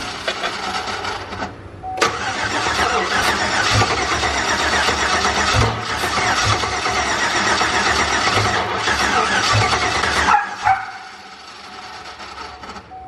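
Turbocharged Chevrolet Silverado engine cranking on the starter without catching, in two tries: a short one ending about a second and a half in, then a long one of about eight seconds that stops suddenly. Fuel pressure only reaches about 35–40 psi while cranking, which the owner puts down to a weak fuel pump.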